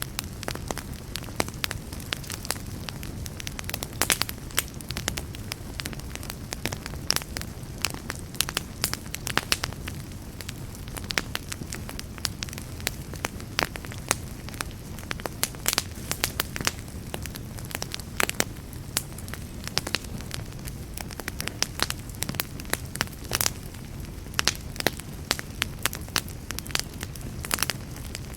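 Wood campfire burning, with a steady low rumble under a constant irregular run of sharp crackles and pops.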